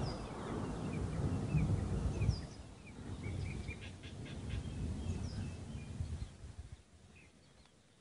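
Birds chirping in short repeated notes over a low, fluctuating rumbling noise that fades out about seven seconds in.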